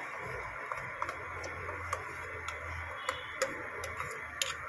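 A steel pot of raw mango curry simmering, giving a steady soft hiss with scattered sharp little ticks, while thick ground masala paste is tipped in from a steel ladle.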